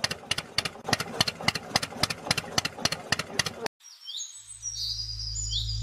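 Tractor engine idling with an even knock, about three or four beats a second, cutting off abruptly a little over halfway through. Then birds chirp over a steady low hum.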